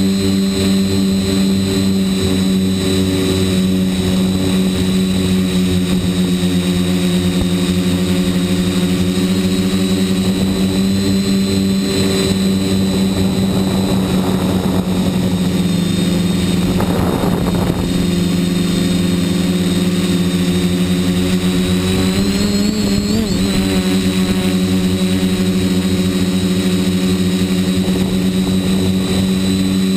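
RC quadcopter's electric motors and propellers buzzing steadily, heard close up from the GoPro mounted on the craft. A rushing noise swells around the middle, and the pitch bends briefly upward about two-thirds through.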